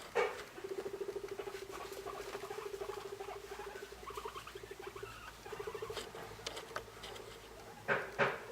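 Guinea pig rumbling: a low, fast-pulsing purr held for several seconds, pausing briefly about five seconds in, the courtship rumble of one guinea pig toward another. Two short louder squeaks near the end.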